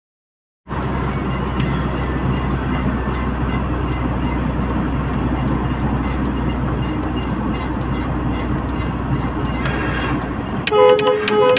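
Truck cab on the move: steady engine and road noise. Near the end a horn sounds in a quick run of short toots.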